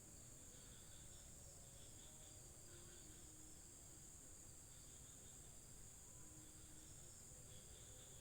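Faint insect chorus: a steady, unbroken high-pitched trill.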